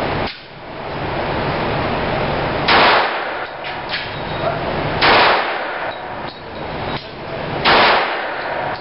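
Pistol shots at a shooting range: three loud, evenly paced shots about two and a half seconds apart, each with a short echoing tail, and a fainter report just after the start.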